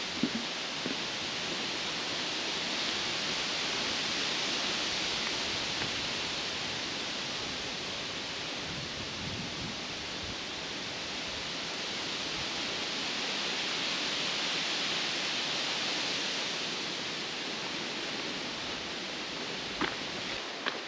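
Wind rustling through the leaves of trees: a steady rushing hiss that swells and eases in two slow gusts, with a couple of light clicks near the end.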